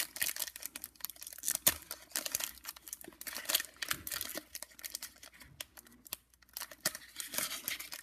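Foil Pokémon booster pack crinkling and tearing as it is opened by hand, with the cards rustling between the fingers; irregular crackling that eases briefly a little past the middle.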